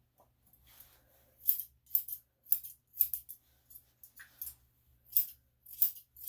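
Grooming scissors snipping the face hair of a Yorkshire Terrier, a run of short, sharp metallic snips about twice a second. The snips pause briefly past the middle, then start again.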